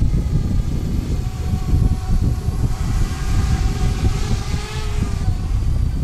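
Parrot Bebop quadcopter's propellers whining, rising and falling slightly in pitch, under heavy wind buffeting on the microphone.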